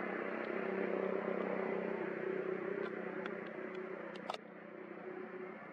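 Steady hum of a motor running in the background. It drops off after a sharp click about four seconds in, with a few faint ticks scattered through.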